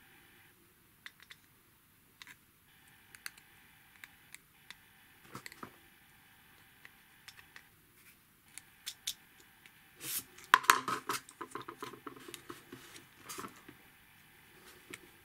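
Scattered small clicks and scrapes of a metal pick and fingers working pieces of a wind-up road-roller 3D puzzle model, with a denser burst of clicking and scraping about ten seconds in.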